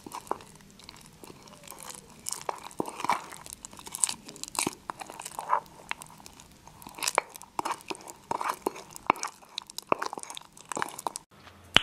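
Metal spoon stirring thick mug-cake batter in a ceramic mug: irregular wet scraping with clinks of the spoon against the mug's sides.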